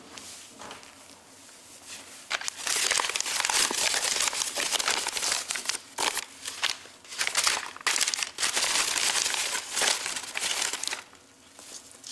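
Used paper napkins being crumpled and bundled up by hand, a busy run of crinkling that starts about two seconds in and stops shortly before the end.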